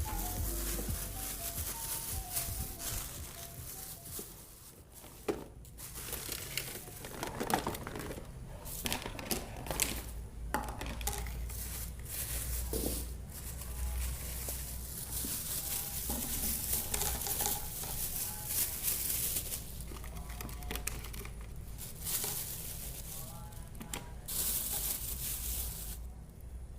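Irregular crinkling and rustling, with scattered light knocks and clicks, over a steady low hum.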